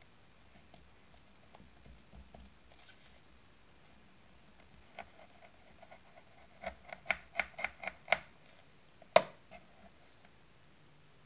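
Tiny knife blade cutting a thin sheet against a steel countertop: a quick run of about seven sharp clicks, then one louder click about a second later.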